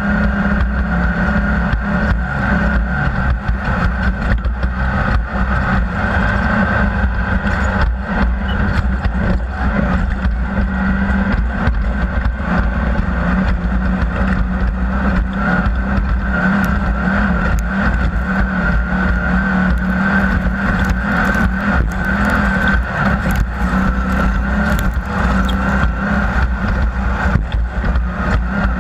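Off-road race vehicle's engine running at steady, high revs with little change in pitch, over frequent knocks and rattles.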